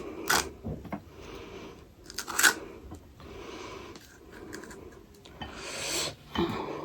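Close-up handling of pani puri: a few sharp clicks of a spoon and crisp puri shells, the loudest about two and a half seconds in, with short stretches of crackling between them.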